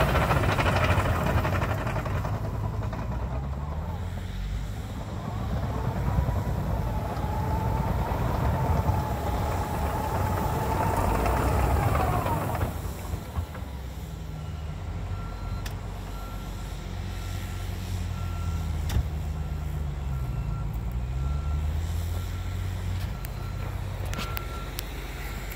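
Cat 953D track loader's diesel engine running under work, its revs rising and falling, with a whine for several seconds in the first half. A reversing alarm beeps steadily through the second half.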